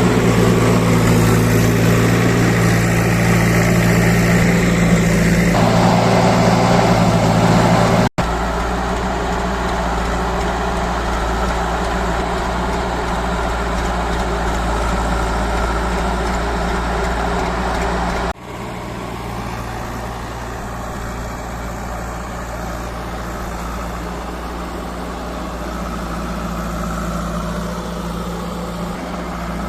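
Diesel engine of a JCB 3DX Xpert backhoe loader running steadily. The sound cuts off abruptly twice, about eight and eighteen seconds in, and comes back a little quieter each time.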